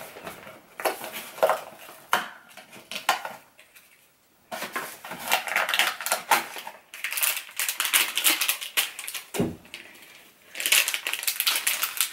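Hands handling a cardboard toy box and small plastic toy pieces on a wooden table: scattered clicks and taps at first, then bursts of crinkling packaging, with a soft thump just before the last stretch of crinkling.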